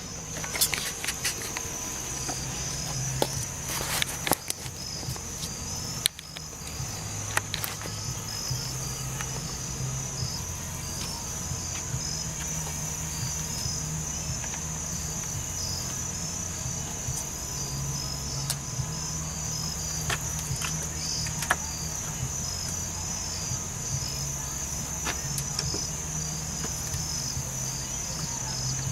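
Crickets chirping steadily in a continuous high-pitched chorus, with a low hum that shifts in pitch underneath. Scattered sharp clicks and knocks of hand tools on metal parts, a few in the first eight seconds and a few around twenty seconds in.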